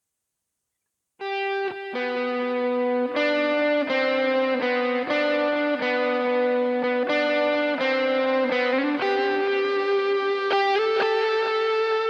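Electric guitar played through a BOSS GT-100 multi-effects processor on a distorted preset, starting about a second in. It plays sustained notes and two-note chords that change roughly every second.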